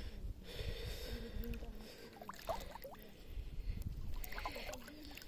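Shallow sea water swishing softly around the legs of someone wading, in two slow swells, over a low rumble.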